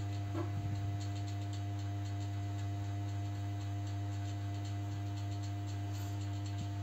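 Steady low electrical hum with faint, scattered ticking; a few soft clicks about half a second in.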